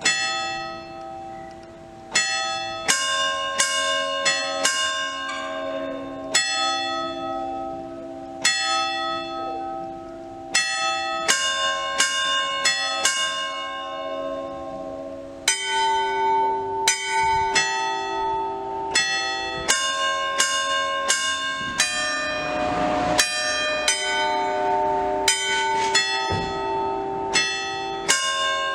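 Church bells from a chime of eight fixed bronze bells cast by the Mazzola foundry in 1988, rung in the weekday ringing. The bells are struck one after another at roughly two strokes a second, each ringing on under the next, and the set of notes changes about halfway through.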